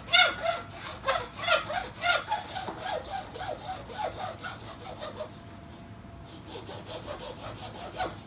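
Hand hacksaw cutting through a small PVC pipe in steady back-and-forth strokes, about two a second. The strokes turn much fainter after about five seconds.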